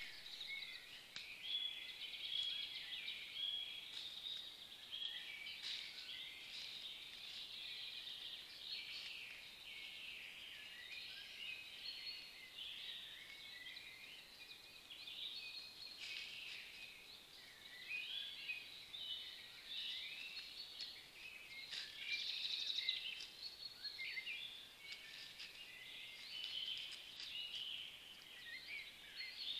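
Woodland songbird chorus: many birds singing at once, a dense run of overlapping chirps, whistles and trills.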